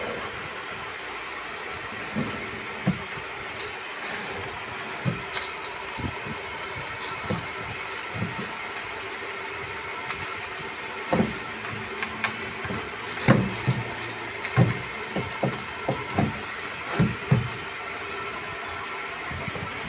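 Particleboard cabinet drawers being slid and pushed shut: a scatter of short wooden knocks and clatters, most of them in the second half, over steady background noise.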